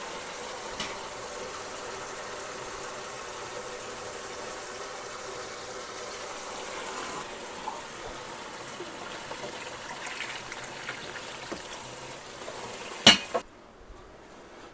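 Water boiling in a speckled enamelware water bath canner: a steady rushing hiss. Near the end comes one sharp knock, after which the sound drops away suddenly.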